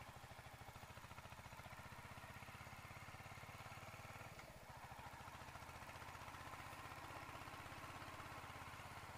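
Royal Enfield Hunter 350's single-cylinder engine running steadily and faintly at riding speed, with a slight dip in level about four and a half seconds in.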